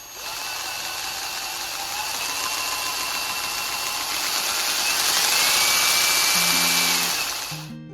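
Power drill spinning a speed cube's top layer at speed, a dense whirring of plastic pieces turning and rubbing in their cradle. It gets louder as the drill is throttled up, with a faint rising whine, then winds down and stops shortly before the end.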